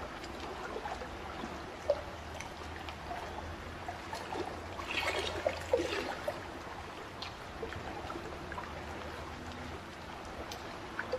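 Water trickling and splashing, with many small plops and drips; a louder stretch of bubbly splashing comes about five to six seconds in.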